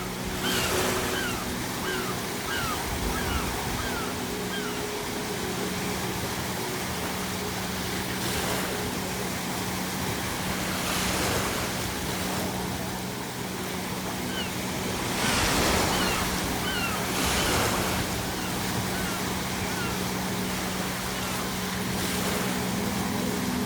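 Sea waves washing and breaking, swelling a few times, while seagulls call in runs of short falling cries near the start and again about two-thirds of the way through. A steady low hum runs underneath.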